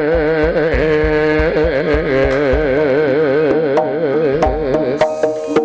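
Jaranan gamelan music: a lead melody with heavy, even vibrato over a steady beat of low drum strokes. Struck metal gamelan notes ring out near the end.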